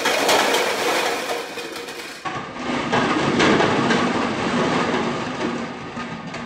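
A tower of about a hundred red plastic Solo cups collapsing after being hit by thrown ping pong balls: a long, continuous clatter of hollow plastic cups tumbling onto the floor and against each other, with a fresh surge about three seconds in.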